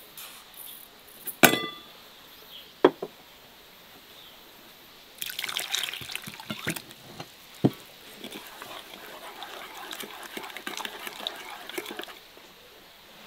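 Water pouring and splashing into a vessel for about seven seconds in the second half. It follows a sharp ringing clink and a shorter knock of kitchenware.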